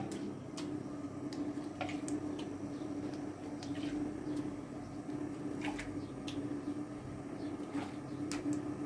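Kitchen handling sounds: scattered light clinks and knocks of dishes and utensils over a steady low hum.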